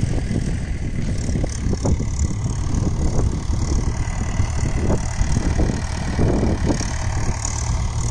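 A tractor's diesel engine running steadily, with a low drone and some irregular rattle over it.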